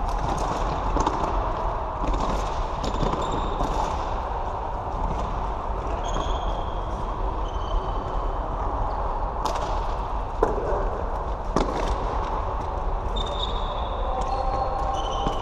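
Floorball play on an indoor court: several sharp clacks of sticks striking the plastic ball around the middle, and short high squeaks of shoes on the floor, over a steady background din.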